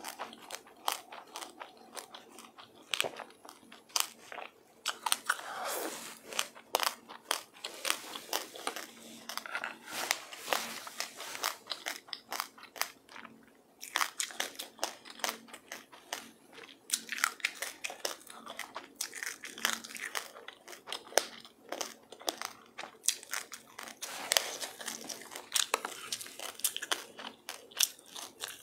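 Close-up chewing and crunching of a mouthful of sesame seeds and passionfruit: a dense, irregular run of sharp crackles, with a brief pause about halfway through.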